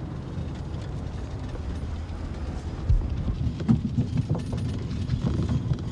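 Knocks and rattles of a wooden ferret hutch with a wire-mesh front being opened and reached into, irregular and starting about three seconds in, over a steady low rumble.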